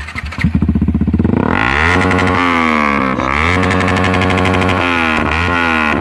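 Yamaha R15 motorcycle engine with an SC Project aftermarket exhaust, started in neutral; its firing pulses quicken over the first second and a half. It then runs and is revved up and down several times. It is very loud.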